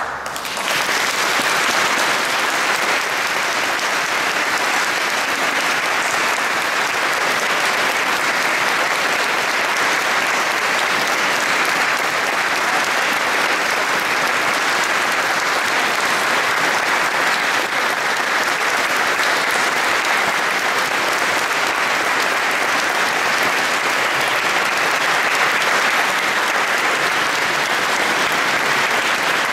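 Audience applauding, steady and unbroken, beginning right as the choir's last note ends.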